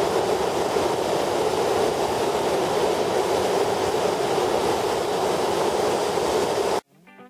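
Steady rush of river water spilling over a low weir and running through the shallows. It cuts off abruptly near the end, and a quiet guitar begins.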